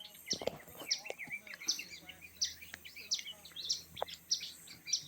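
Birds calling: one bird repeats a short, high chirp about every two-thirds of a second, with other bird calls in between.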